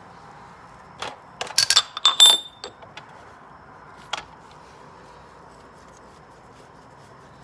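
Metal clicks and clinks of a ratchet wrench and its filter-housing adapter being handled and pulled off the oil filter housing: a quick run of sharp, briefly ringing clinks about a second in, and one more click about four seconds in.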